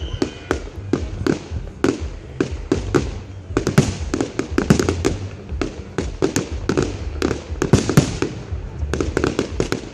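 Fireworks display going off: a rapid, irregular series of bangs and crackles from bursting aerial shells, thickest about three and a half seconds in and again near the end.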